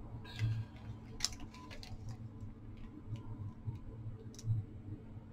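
Scattered light clicks and ticks of small craft items handled on a glass craft mat while glue is squeezed from a fine-tip applicator bottle onto a paper puzzle piece, over a steady low hum.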